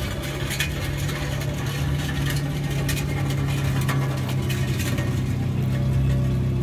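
A lowered Volkswagen Saveiro pickup's engine runs steadily as the truck rolls slowly past, growing a little louder as it nears, with scattered clicks and crackles over the engine hum.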